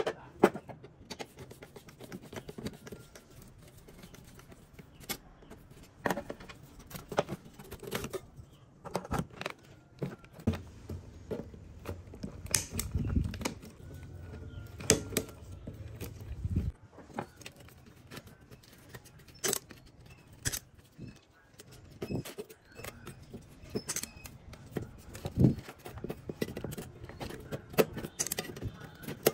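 Irregular metallic clicks, clinks and knocks from a rusty, dirt-caked computer power supply being taken apart by hand: its sheet-metal case and parts are handled and cut with snips, with a few duller thumps along the way.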